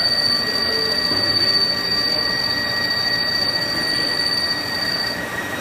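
Haas SL10 CNC lathe taking a dynamic roughing cut in aluminium with a round button insert, coolant spraying, and the cut giving off a steady high-pitched squeal that breaks off about five seconds in. The squeal comes from a feed rate set too slow; it should have been 0.02 IPR.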